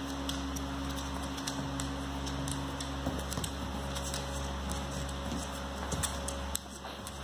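Old English Sheepdogs' claws clicking irregularly on a hard floor as an adult and a puppy play and scuffle, over a steady low hum.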